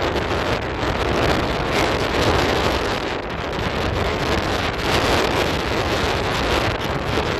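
Strong sea wind buffeting the microphone over waves breaking on a sandy beach, a steady rushing noise that swells and eases.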